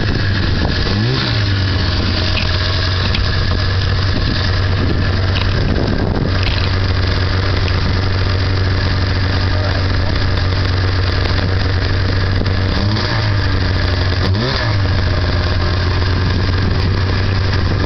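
1991 Arctic Cat EXT Special 550 snowmobile's two-stroke engine running under way, heard from on board: a steady drone that briefly rises and falls in pitch a few times as the throttle is worked, most noticeably about a second in and twice near the end.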